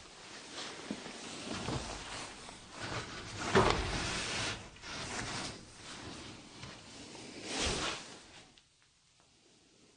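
Rustling and scraping handling noise, with cloth brushing close to the microphone as the handheld camera is moved about. It comes in several surges, loudest about three and a half seconds in and again near eight seconds, then stops.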